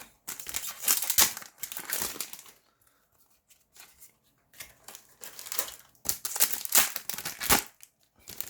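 Foil booster-pack wrappers crinkling and tearing as Yu-Gi-Oh! card packs are ripped open and handled, in two bouts of rustling with a quieter lull between.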